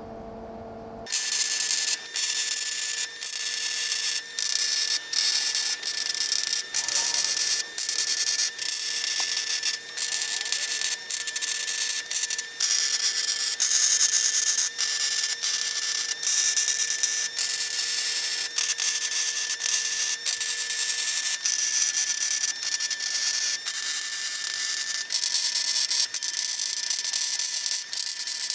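MIG welding arc from a Longevity MigWeld 140 running .030" ER70S-6 wire on C25 gas, crackling as beads are laid on steel roll-cage tubing. It is stitch welding: short crackling runs of one to two seconds, stopping and restarting again and again.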